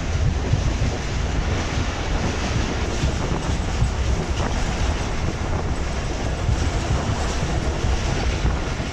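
Passenger train running along the track: a steady rumble and rattle of the coaches' wheels over the rails.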